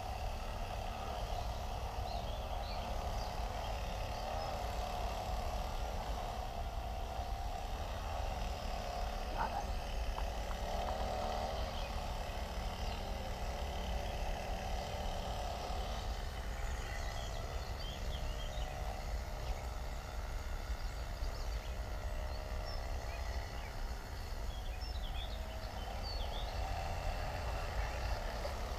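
Steady outdoor background noise: a constant low rumble with a fainter hiss above it, and scattered faint, short high chirps in the second half.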